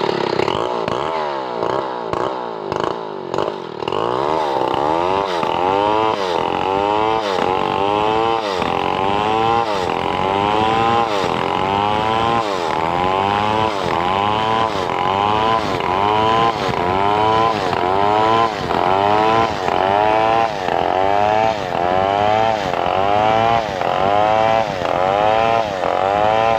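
Two-stroke chainsaw cutting lengthwise through wood to split it. The engine note dips under load and climbs back about once a second in a steady rhythm, more unevenly in the first few seconds.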